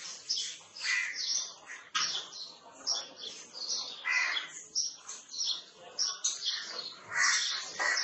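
Birds calling all around: many short, high-pitched chirps and calls, one after another every half second or so.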